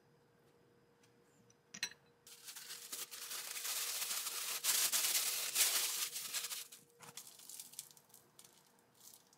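Plastic wrap crinkling and rustling as a filled tortilla is rolled up tightly inside it, dense for a few seconds and then thinning to scattered rustles. A sharp click comes just before the crinkling starts.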